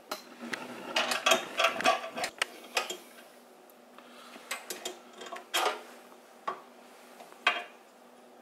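Metal clicks and rattles as the band saw's table tilt mechanism and stop are adjusted by hand while the table is brought to 90 degrees to the blade. A quick run of clicks comes in the first three seconds, then a few separate knocks later on.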